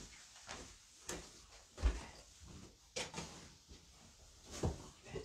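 A series of short knocks and soft thuds, like objects being handled and set down in a small room. The loudest is a low thud about two seconds in.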